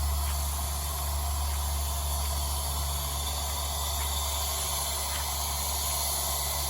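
Well-drilling rig running steadily: a constant low drone under an even hiss.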